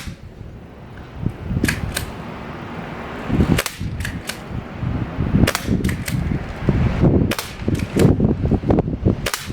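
Umarex RP-5 CO2 air rifle firing a rapid semi-automatic string: about a dozen sharp cracks, in quick groups of two or three shots.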